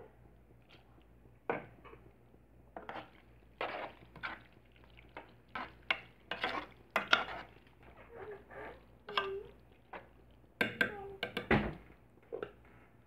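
A utensil stirring boiled macaroni through a thick white sauce in a pan, making irregular scrapes and clacks against the pan, loudest a few seconds in and again near the end.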